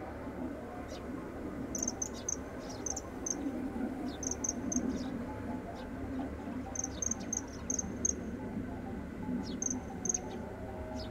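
Cricket chirping in short runs of three to five very high chirps, every second or two, over a low steady outdoor background.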